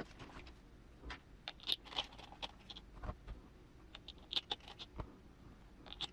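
Scattered light clicks, taps and short scrapes of small hard parts and a tool being handled while assembling RC crawler wheels and tires.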